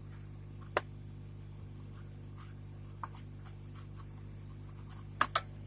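Steady low hum with a few sharp clicks and taps from tools and the board being handled on the repair bench: one about a second in, a faint one around three seconds, and two close together near the end.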